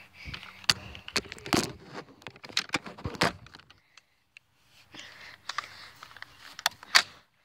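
Phone handling noise: irregular rubbing, scraping and knocking of hands and clothing against the microphone, with a short pause about halfway and one sharp knock near the end.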